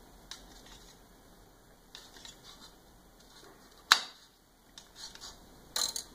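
Kitchen knife clicking and scraping against a small china plate while mozzarella is sliced. There is one sharp click about four seconds in, then a short clatter near the end as the knife is laid down on the granite counter.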